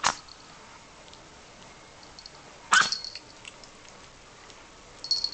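Chihuahua sneezing: a sharp sneeze at the start and a louder one about two and a half seconds later, then a few faint ticks and a smaller sneeze-like burst near the end.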